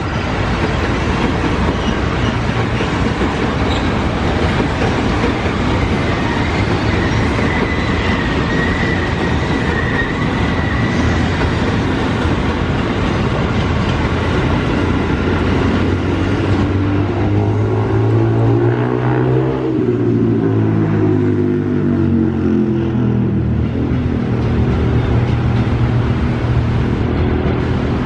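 A KRL Commuter Line electric train, an ex-JR 205-series set, passing close: a steady rumble and clatter of wheels on rail. From a little past halfway, a low hum that rises and falls in pitch comes through.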